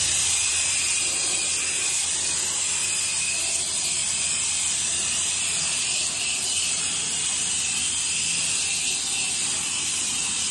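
Pressure washer lance blasting a high-pressure water jet across Trex composite deck boards: a steady, unbroken hiss. It is rinsing off the cleaning solution after its dwell time.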